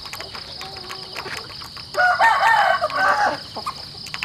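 A rooster crows once, about two seconds in: a loud, broken crow lasting just over a second.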